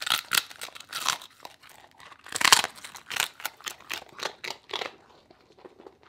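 A corgi biting and chewing a dried cod-skin dog treat: a quick run of sharp, crackly crunches, the loudest about two and a half seconds in, thinning out near the end.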